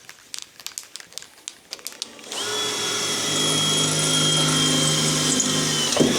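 Power drill running steadily for about four seconds, boring a hole that leaves chips, with a steady high whine. It starts about two seconds in after a few light clicks and stops sharply near the end.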